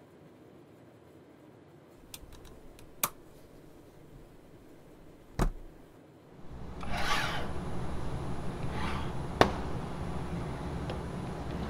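A laptop being handled on a wooden table: a few light clicks and a thump, then rubbing swishes as hands slide over it, with a steady low hum underneath from about halfway through.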